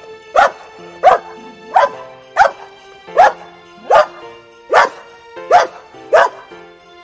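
Dog barking nine times in an even run, about one bark every three quarters of a second, over soft background music.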